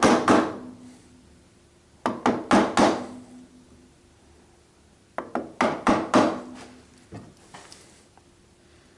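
Woodworking chisel being tapped lightly into timber to set in a marked line: small clusters of sharp wooden knocks, two, then three, then four, a few seconds apart, with a short ring after each. The taps are kept light so the timber does not split.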